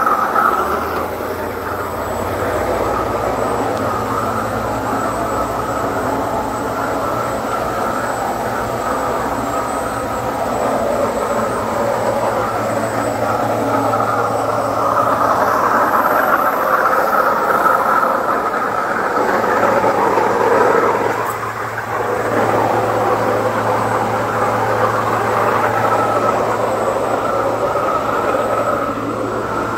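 Waterjet cutting head of a Techni Intec 612 running at up to 66,000 psi: a loud, steady jet noise as it cuts a plate at the water surface of the catcher tank, over a steady low hum. The noise dips briefly about two-thirds of the way through.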